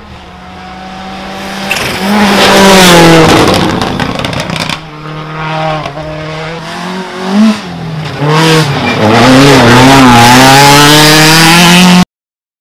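Rally car engine at full throttle on a dirt stage: a car approaches and passes, growing very loud about two to three seconds in. After a cut, another pass follows, the engine pitch rising and falling through gear changes, loud until it cuts off suddenly near the end.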